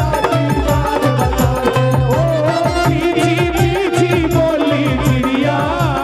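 Live Haryanvi devotional bhajan music: a steady drum beat with an electronic keyboard playing the melody, without a lead vocal line.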